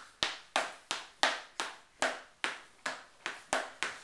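Hands clapping in a steady rhythm, about three sharp claps a second, each with a short echo of the room.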